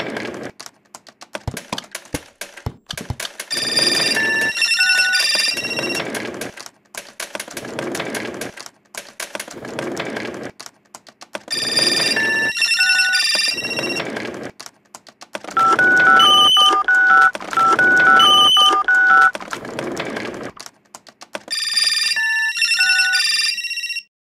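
Electronic telephones ringing in short trilling bursts that come back every few seconds, with a stepping beeped ringtone melody through the middle. Between the rings there is a clicking, rustling noise. The sound cuts off just before the end.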